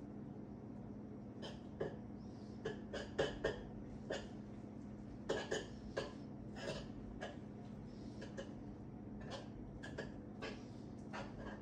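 A spoon stirring and scraping cream of rice with protein powder and a splash of water in a plastic meal-prep container: short, irregular scrapes and taps, over a steady low hum.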